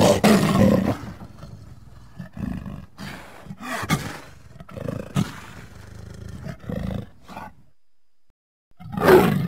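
Fan-made Indoraptor creature sound effect: a loud roar lasting about a second, then a string of shorter growls, a second of silence, and another loud roar near the end.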